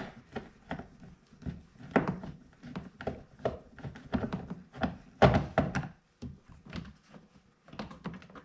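Irregular knocks, clicks and thunks of a screwdriver working on a plastic car door panel as its screws are removed, with one louder thump about five seconds in.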